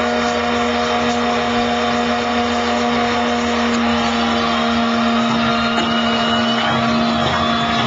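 Radio-controlled model tug boat's electric motor running with a steady, even whir and water churning around it.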